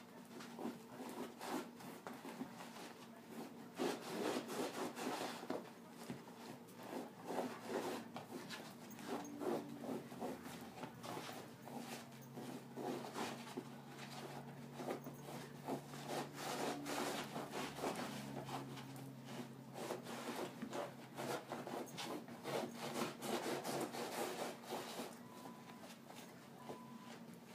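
A puggle scratching and pushing at a fabric blanket on carpet, the digging motions of a dog trying to bury a bone: quick, irregular rubbing and scraping strokes.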